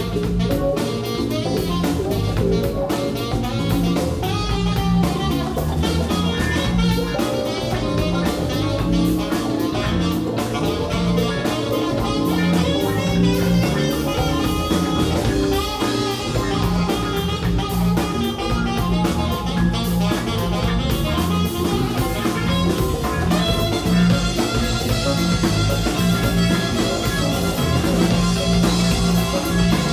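Live band playing an instrumental blues-jazz passage: electric guitar, drum kit, bass and keyboards, with an alto saxophone.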